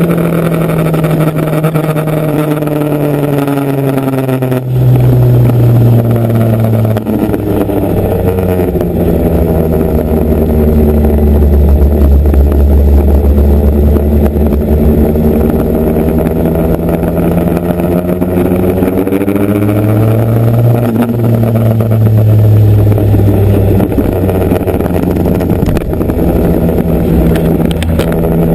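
Motorcycle engine running under way. Its pitch falls over the first few seconds, changes sharply about five seconds in, then rises and falls slowly as the revs change.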